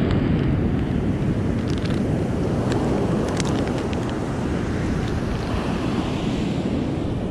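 Ocean surf breaking on a sandy beach, a steady rush mixed with wind buffeting the microphone. A few faint clicks stand out between about two and three and a half seconds in.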